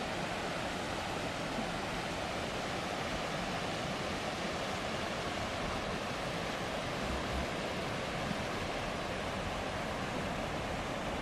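Steady rushing of a swollen river in flood, fast muddy water running high with white water.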